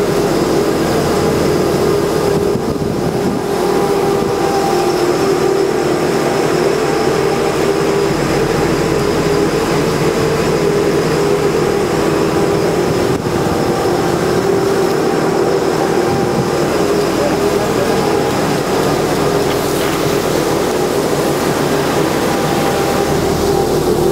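Fishing boat's engines running steadily underway, a constant drone with a steady hum.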